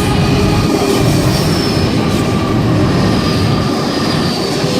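Train running along the rails close by: a loud steady rumble of wheels, with a faint high wheel squeal that slowly falls in pitch.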